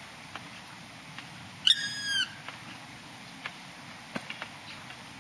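Black woodpecker giving one drawn-out, high call about a second and a half in, its pitch falling away at the end.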